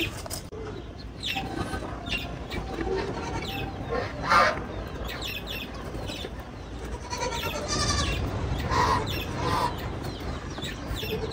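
Poultry and aviary birds calling in scattered short calls, the loudest about four seconds in, with a quick rattling run of notes around seven to eight seconds.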